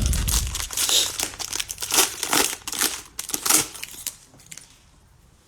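Cellophane wrappers of trading-card cello packs crinkling and tearing as the packs are ripped open by hand, with a low thump at the start. The crackling stops about a second before the end.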